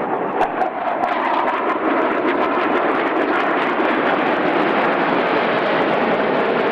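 Steady, loud jet noise of a formation of twin-engine fighter jets flying past, with a few brief crackles in the first second.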